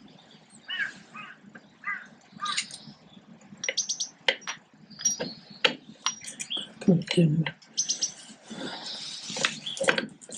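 Sharp metal clicks, clinks and scraping of hand tools on drum-brake parts as a brake shoe return spring is worked into place on a 1955 Fordson Major tractor's brake backplate, coming thick and fast from about three seconds in. In the first few seconds a bird calls four times.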